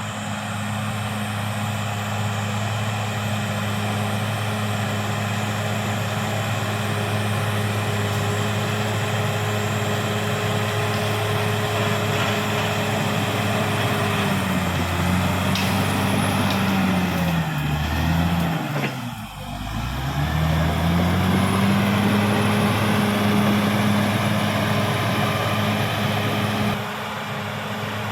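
Caterpillar D6R XL bulldozer's diesel engine running at steady working speed with clatter from the machine, then about two-thirds of the way through the engine note drops sharply to a low pitch and climbs back up to working speed within a few seconds.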